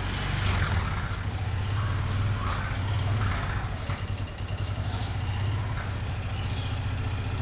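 Auto-rickshaw (three-wheeler) engine idling with a steady, low, fine-pulsing hum.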